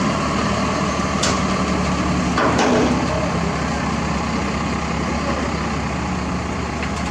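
Heavy diesel engines running steadily at a construction site, with two sharp knocks about a second and two and a half seconds in.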